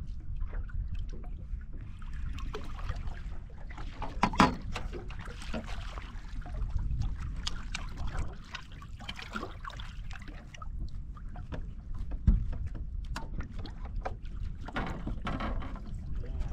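Wind buffeting the microphone over a low, steady rumble, with small waves lapping against a fishing boat's hull. There is a sharp knock about four seconds in and a dull thump about twelve seconds in.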